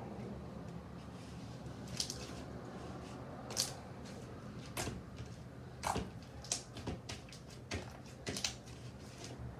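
Homemade slime being squeezed and stretched by hand, giving short wet pops and clicks at irregular intervals.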